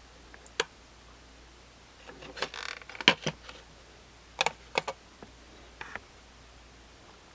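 Handling of a plastic alarm clock: scattered sharp clicks and knocks. A short scraping rustle comes about two and a half seconds in, a loud pair of clicks about three seconds in, and a few more around four and a half and six seconds.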